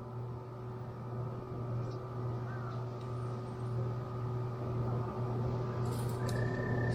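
A steady low machine hum with a few constant higher tones, slowly growing louder, with a few faint short high chirps over it.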